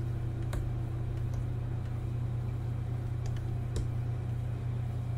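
Steady low electrical-sounding hum, with a few faint clicks about half a second, a second and a half, and nearly four seconds in.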